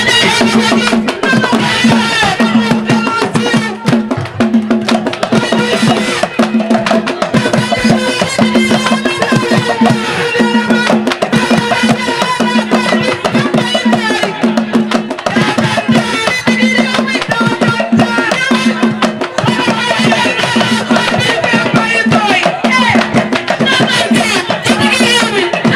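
Music with a steady percussion beat and singing voices.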